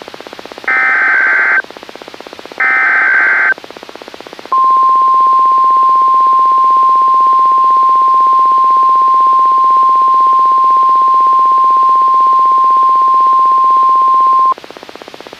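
Two bursts of SAME digital header data, each a harsh warbling screech about a second long, followed by the steady 1050 Hz weather radio alert tone. The tone is held for about ten seconds and then cuts off abruptly. Together they are the alert signal that marks the start of a weather radio activation, heard over light radio hiss.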